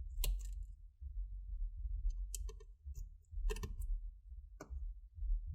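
Sharp little clicks and taps of a small screwdriver and tiny screws as the two screws holding a laptop's SSD are undone, in four or five separate clusters over a low steady hum.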